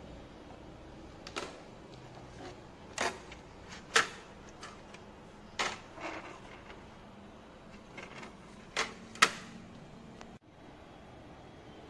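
Sharp clicks and clanks from the sheet-steel case of a Hikvision DVR as it is unscrewed and its cover taken off. About seven separate knocks come at irregular intervals, the loudest about four seconds in and again in the last third.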